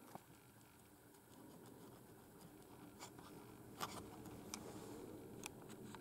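Faint, scattered clicks of keys being pressed on a Cherry G83-6105 membrane keyboard, a handful in all, the clearest about four seconds in.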